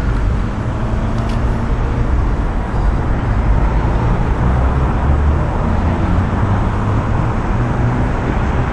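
Steady road traffic noise, a continuous low rumble with no single vehicle standing out.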